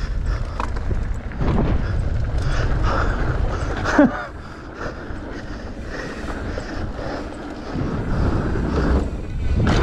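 Mountain bike ridden fast down a dirt and gravel trail: a steady rumble of the tyres and wind on the microphone, with knocks and rattles from the bike. About four seconds in comes one short, loud, falling squeak.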